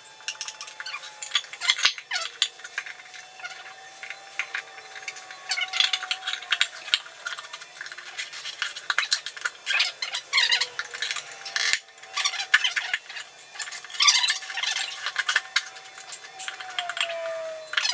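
Screwdrivers prying a small lawn-tractor tire's bead over a steel rim: irregular scraping, clinking of metal on the rim and rubbing of rubber. A faint thin wavering whine runs underneath.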